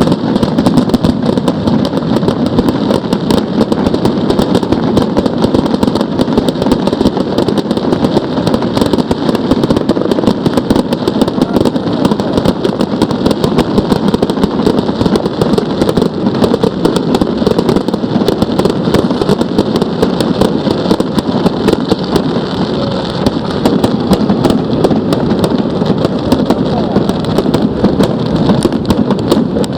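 Fireworks display: a dense, continuous barrage of bangs and crackles.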